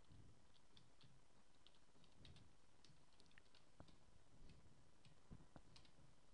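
Near silence: room tone with faint, scattered clicks, a few every second.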